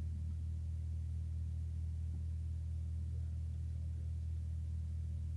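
Steady low hum, unchanging throughout, with nothing else clearly above it.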